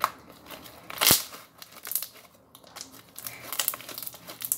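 Thick white cornstarch slime being squeezed and pulled apart by hand, giving irregular crackles and pops, the loudest about a second in.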